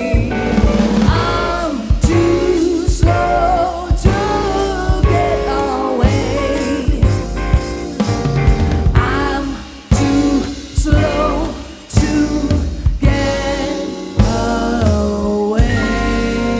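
Live jazz-pop band playing: drum kit, double bass, piano and guitar, with a voice singing over them. The drums keep sharp strokes going, and the band drops back briefly twice about two-thirds of the way through.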